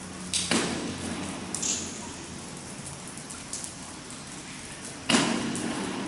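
Two sharp impact sounds about four and a half seconds apart, each ringing on in a long echo inside a brick tunnel, with a few faint ticks between them.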